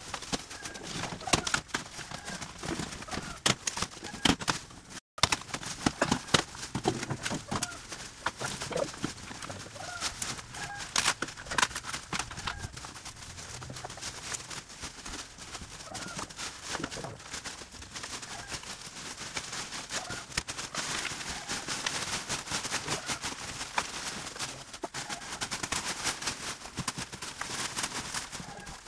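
Irregular knocks, clicks and clatter, which drop out for a moment about five seconds in. In the later part a denser, scratchy noise joins them.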